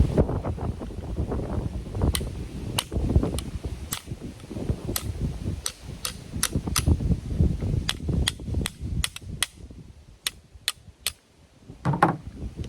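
Sharp metal-on-metal strikes on a rust-seized car hood latch, knocked at to free it up: about twenty uneven clicks and knocks, coming faster in the second half.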